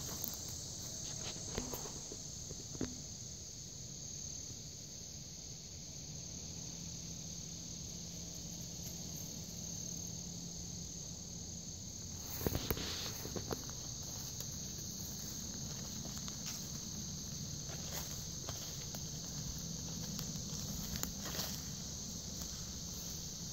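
Steady high-pitched insect chorus in summer woods. Footsteps and rustling through leaf litter and undergrowth come and go over it, loudest as a short run of crunches about halfway through.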